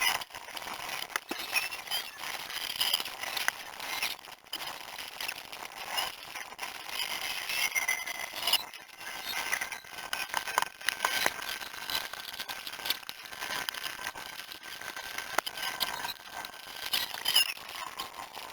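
Workshop sounds of engine parts and hand tools clinking and scraping, sped up many times over so that they run together into a dense chatter of rapid clicks and short high squeaks.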